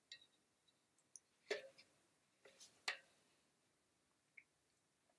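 Near silence broken by a few faint clicks and taps, about a second and a half apart, from small hub parts being handled on a Thule Chariot trailer wheel during reassembly.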